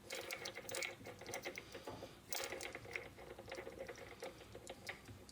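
Light, irregular metal clicks and taps from a drill being fitted into the lathe, over a faint steady hum.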